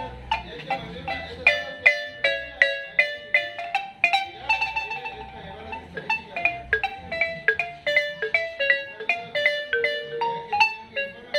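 Marimba with hormigo-wood bars played solo with two mallets: a quick melody of single struck notes, each ringing briefly, with a note or two held a little longer about four seconds in.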